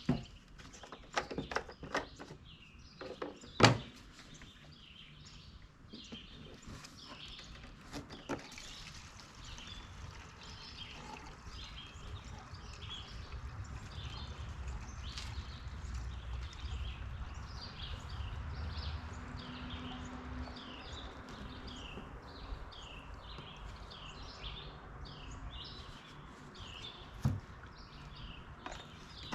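Birds chirping over and over in quick short notes. A few sharp knocks and clicks come in the first several seconds and one more near the end, with a low rumble in the middle.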